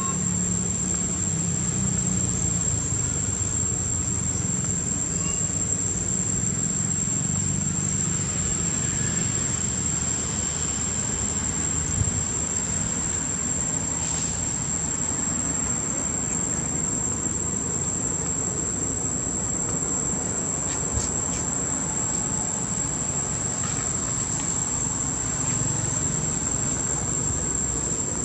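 Insects droning at one steady high pitch, over a low steady rumble of background noise.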